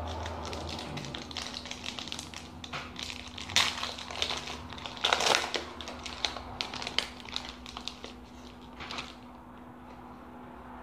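Hockey card pack wrapper being torn open and crinkled by hand, in a run of crackly rustles. The loudest tears come about three and a half and five seconds in, and the rustling thins out near the end as the cards come free.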